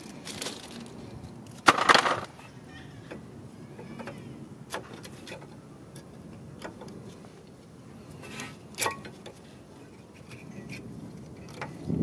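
Metal clinks and rattles from hands working a rear disc brake caliper and brake pads, with scattered small clicks. A louder, short burst of noise comes about two seconds in, and another sharp knock just before nine seconds.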